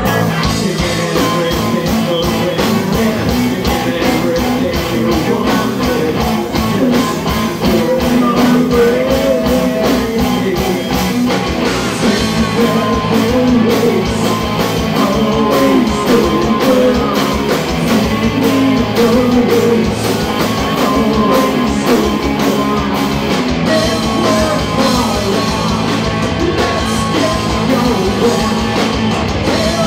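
Rock band playing live, with a singer over guitar and drums in a fast, steady beat.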